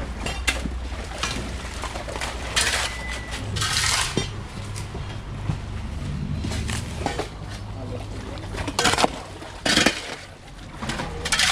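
Irregular metallic clinks and short scraping strikes from pipe-repair work, over a steady low rumble.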